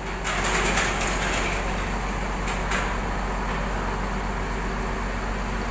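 Steady low rumble of buses idling nearby. A loud rush of hiss comes about half a second in and fades over a second, and a couple of short clicks follow a little later.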